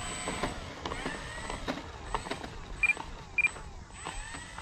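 The brushless electric motor and 12x7.5 propeller of an FMS Ranger 1.8m RC plane whir as it taxis away, the pitch gliding up and down with the throttle. Near the middle there are two short high beeps about half a second apart.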